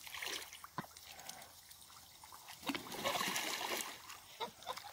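Water splashing and trickling as a flock of Danish geese and Pekin ducks swims and paddles in a pond, with a louder stretch of splashing about three seconds in. A few short calls from the birds come near the end.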